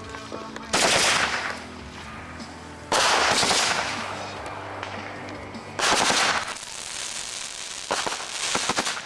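Fireworks going off: four loud, sudden bursts a couple of seconds apart, each fading with a crackle.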